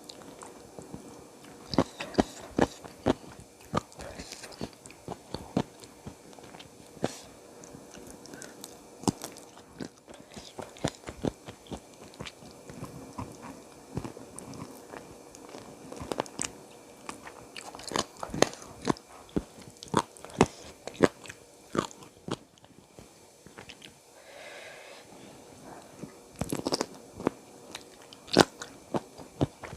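A person eating close to the microphone: irregular crunchy bites and chewing through a meal of spicy chicken feet and raw vegetables, with clusters of sharper crunches.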